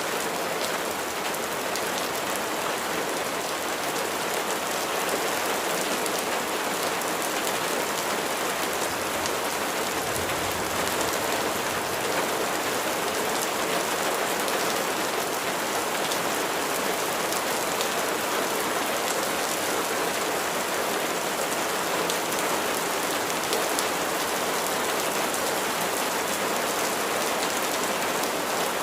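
Steady rain falling on a surface: a dense, even hiss of many drops, with fine individual drop ticks and no change in strength.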